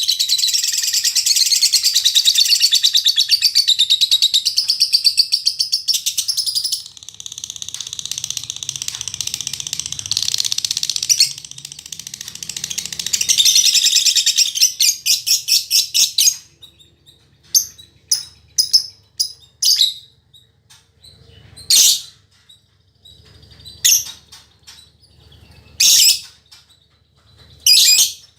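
Female lovebird singing in long, fast runs of high chattering chirps for about sixteen seconds, then giving single sharp chirps every second or two.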